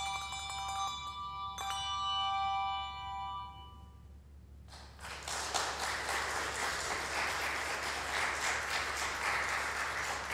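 Handbells ringing their last chords, struck once more about a second and a half in and fading away by four seconds; then a congregation applauding from about five seconds in.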